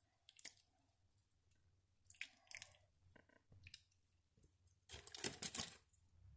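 Spoon basting a baked ham with pineapple and cherry pan juices in a foil-lined roasting pan: a few faint, short wet scrapes and dribbles, the loudest a burst of nearly a second about five seconds in.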